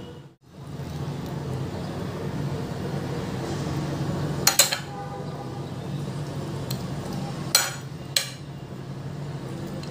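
Kitchen dishes and a baking tray clinking as fish is laid in to soak in lemon juice: a quick pair of clinks about halfway through, then two more a few seconds later, over a steady low hum.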